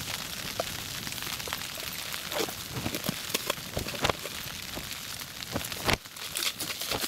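Rain pattering steadily on the fabric of an ice-fishing tent, with a few sharp knocks from gear being handled about two and a half, four and six seconds in.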